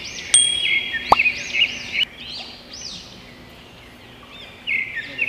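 Many small birds chirping at once: overlapping short, high chirps, loudest in the first two seconds and picking up again near the end. One sharp click about a second in.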